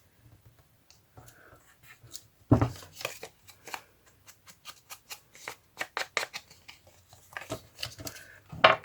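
Paper and card being handled: a run of short, crisp rustles and clicks, with a louder knock about two and a half seconds in.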